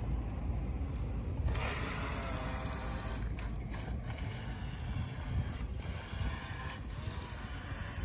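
Mini remote-control speedboat running at speed across the water: a high motor whine with hissing spray, getting stronger about a second and a half in, over a low rumble.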